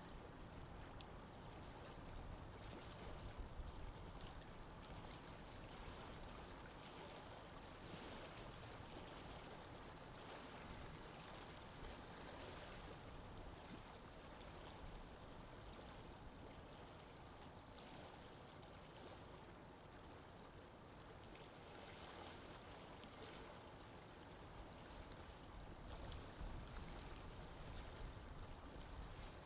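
Faint, steady lake water lapping and trickling, with small splashes and gentle swells.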